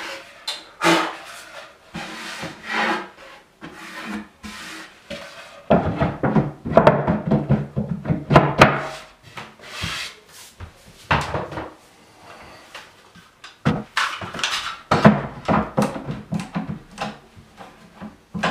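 Plywood cabinet panels being handled and fitted together: irregular wooden knocks, scrapes and rubs as the top panel is worked into its dados, busiest about a third of the way in and again past the middle.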